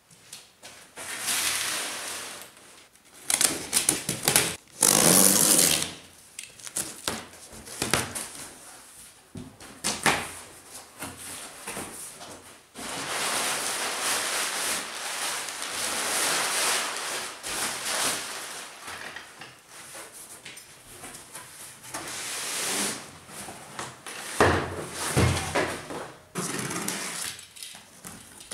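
Cardboard packaging being handled on a workbench: the box knocks and thumps as it is put down and moved, and crumpled packing paper rustles for several seconds as it is pulled out. Near the end a utility knife cuts along the tape of the inner box.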